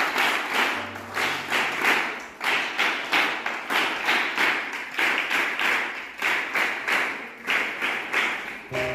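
A group of children clapping together in time, a steady beat of about two claps a second.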